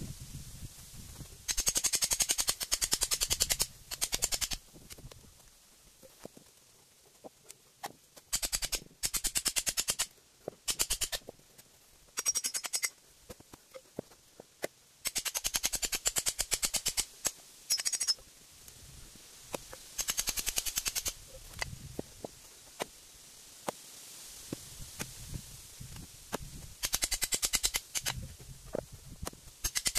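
A hammer driving a hatchet into a small log to split it: quick runs of metallic blows with a ringing tone, each run a second or two long, with pauses between the runs and a few single knocks.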